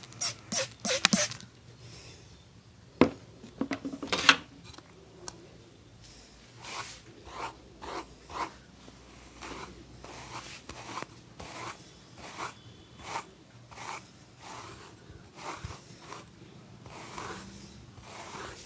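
Hands rubbing skin during a massage, in short rubbing strokes about two a second. Before that come a few sharp slaps or clicks, loudest in the first second and again around three and four seconds in.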